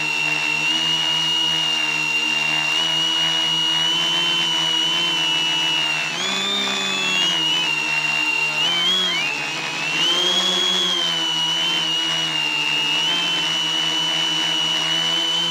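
Quadcopter's electric motors and propellers whining steadily, picked up close by the camera on board; the pitch dips and rises a few times around the middle as the throttle changes.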